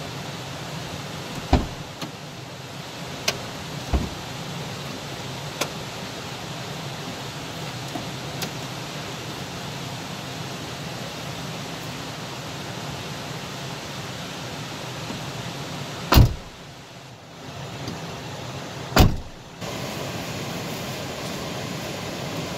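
Steady rushing of fast-flowing river water, broken by a few sharp knocks, the two loudest near the end.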